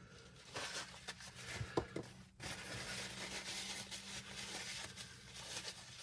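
Rubbing and rustling of a wiping cloth over RC shock parts, with a few small clicks in the first two seconds.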